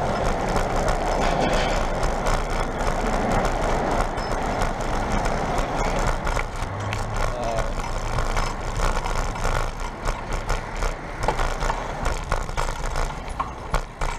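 Road traffic and street noise heard from a moving bicycle, with no single event standing out.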